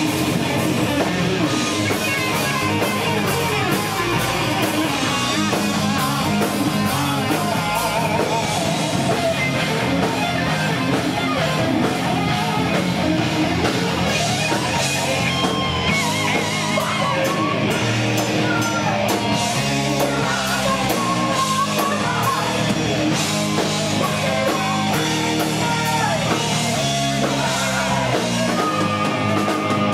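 Heavy metal band playing live: distorted electric guitar over a drum kit, with a singer shouting into the microphone near the end.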